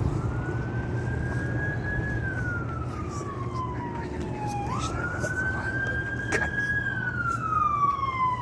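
Emergency vehicle siren in its slow wail: the tone rises, holds high for a couple of seconds and slides down, then climbs back quickly about four and a half seconds in and starts falling again near the end. A steady low hum runs beneath it.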